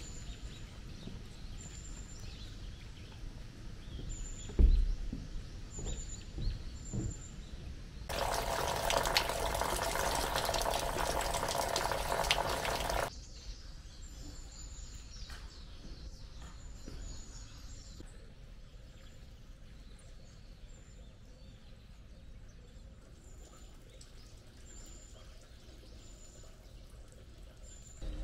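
Water running or splashing loudly for about five seconds in the middle, starting and stopping abruptly. Behind it, faint high-pitched bird chirps repeat every second or two, and there are a few dull thumps before the water starts.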